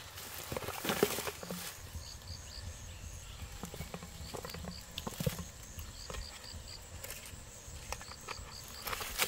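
Crackling and rustling of dry bamboo leaves and plastic rubbish as plastic bottles are pulled from a litter heap and handled, with scattered knocks of the bottles, busiest in the first second and a half and again around five seconds in. Faint groups of three or four short high peeps repeat every couple of seconds in the background.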